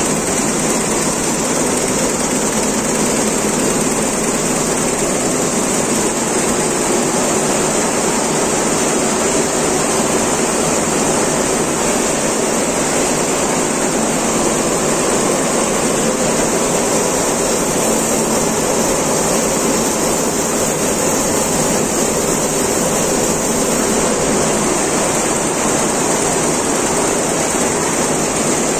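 Richpeace computerized multi-needle quilting and embroidery machine running, its long row of needles stitching together in a steady, even mechanical noise.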